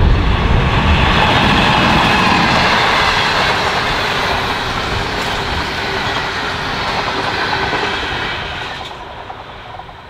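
Diesel-hauled passenger train passing close by: the locomotive goes by first, then its stainless-steel carriages roll past with a steady rush of wheel and rail noise. The sound fades quickly near the end as the train draws away.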